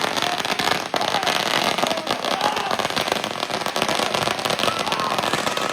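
Fireworks crackling: a dense, continuous rattle of rapid small pops, briefly dropping out just under a second in.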